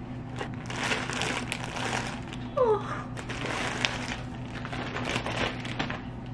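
Clear plastic bag crinkling and cardboard box rustling as a stuffed teddy bear is pulled out of a flower delivery box and unwrapped. About two and a half seconds in there is a short falling vocal sound, and a steady low hum runs underneath.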